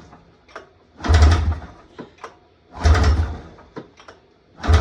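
A Polaris XC snowmobile's two-stroke engine being pull-started by hand, turning over on each yank of the recoil rope without firing. There are two full pulls, and a third begins right at the end. The engine is not getting fuel from its fuel pump.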